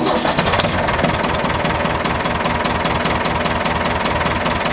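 Ford 5000 tractor's four-cylinder engine just started, running up and settling into a steady idle with an even, rhythmic beat.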